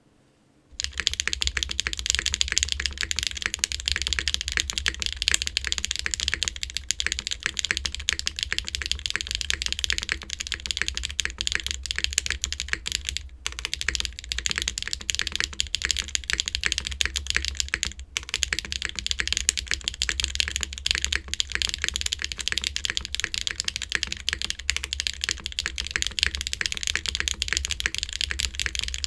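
Geonworks F2-84 mechanical keyboard (aluminum plate, lubed HMX Clouds switches, GMK keycaps) typed on fast and continuously: a dense, loud, sharp clacking that starts about a second in and breaks off briefly twice.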